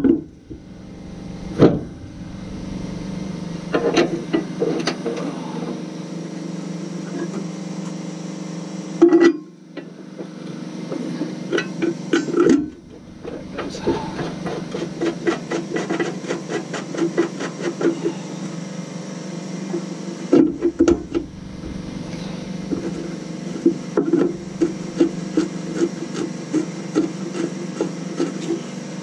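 Bumper-guard bracket hardware being fitted to a pickup's frame by hand: a few sharp metal knocks, then from about halfway on, runs of quick light clicks and scrapes as the bolts are worked. A steady low hum runs underneath.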